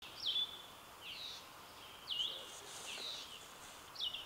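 A bird calling over and over, about once a second, each call a quick falling sweep that settles into a short held whistle, over a faint outdoor hiss.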